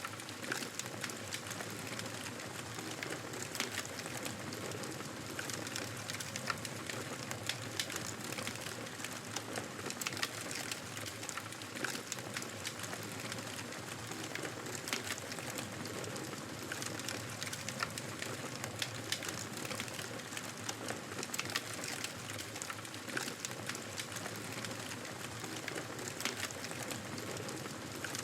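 Campfire burning: a steady hiss of flames with frequent irregular crackles and pops from the burning wood.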